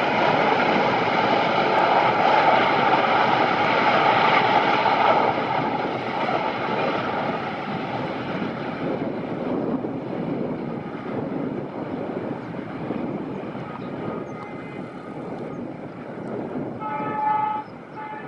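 Diesel locomotive hauling a double-decker passenger train: a steady engine drone, loud at first, drops about five seconds in and fades as the train draws away. Near the end the locomotive's horn sounds, one blast cut off sharply and then a short second one, with a faint horn note a couple of seconds before.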